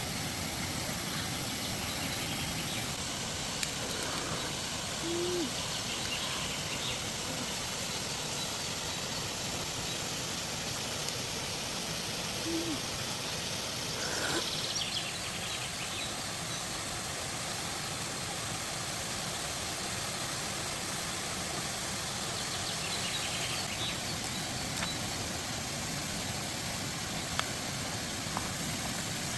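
Steady outdoor background hiss with two brief low hoot-like calls, about five seconds and twelve seconds in, and a few faint ticks near the end.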